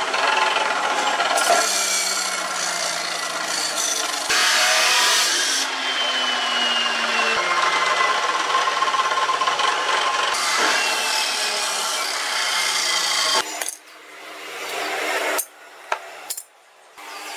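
Ken abrasive cut-off saw (chop saw) running, its disc grinding through steel plate with a loud, harsh noise; the motor's pitch falls a few times as the disc is pushed into the cut. The noise cuts off suddenly about 13 seconds in, leaving quieter, uneven sounds.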